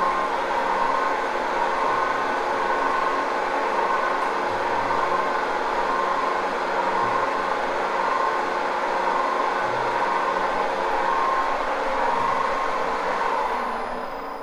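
Metal lathe running steadily on a frequency converter, its headstock gears and spindle turning with the headstock cover off: a steady mechanical whir with a ringing gear note that swells and fades. The sound dies down near the end.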